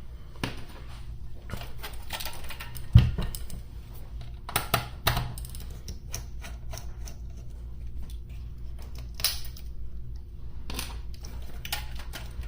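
Scattered clicks, taps and rattles of hands working on a car radio's plastic front fascia and casing. One sharper knock comes about three seconds in, under a steady low hum.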